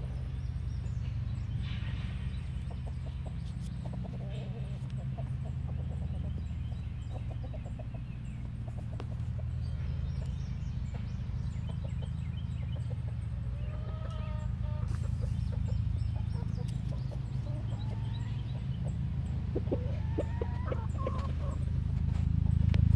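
Pigs snoring, a low rumble that rises and falls slowly, with hens clucking now and then, most clearly near the middle and towards the end.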